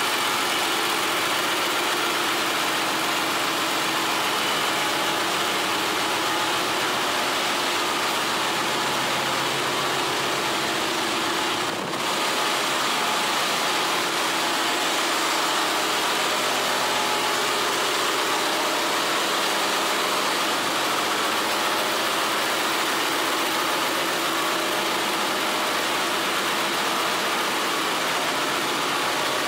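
Steady, loud din of a ship's engine room: running diesel engines and machinery with a broad hiss over it, dipping briefly about twelve seconds in.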